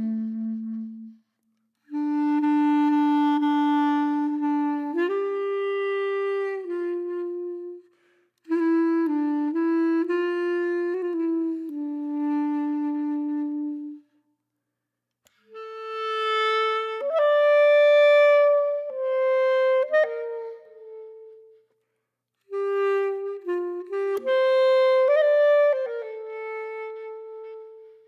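Background music: a single-line instrumental melody played in phrases, broken by a few short silences.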